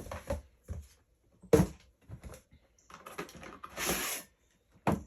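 Clicks and knocks from handling an insulated metal shaker bottle and its snap-on lid, with a sharp knock about one and a half seconds in, a short rustle near four seconds, and another knock near the end.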